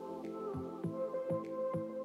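Background music: held, chord-like tones over a steady beat.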